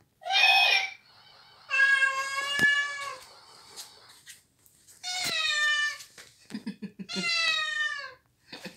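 Walking plush toy cat playing recorded meows: four meows about a second or two apart, the longest held level for about a second and a half, the last two falling in pitch.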